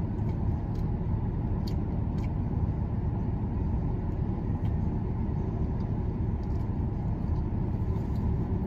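Steady low rumble of a vehicle heard from inside its cabin, with the engine running.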